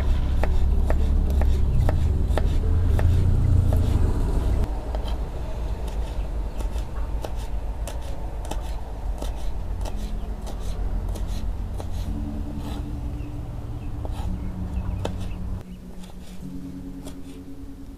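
Kitchen knife slicing shallots, garlic and bird's eye chilies on a wooden cutting board: a run of quick, irregular taps of the blade on the board. A low rumble sits under the first four seconds or so.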